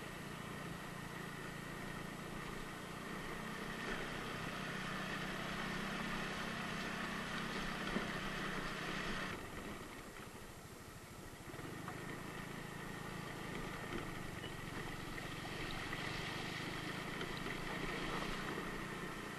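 Small scooter engine running steadily under the ride, with an even hiss of road and wind noise from riding on a wet road. About halfway through, the engine note drops away for a couple of seconds, then picks up again.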